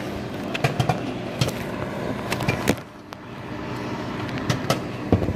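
Microwave popcorn popping inside a running microwave oven: irregular sharp pops, a dozen or so, over the oven's steady hum, with a brief lull just before the middle.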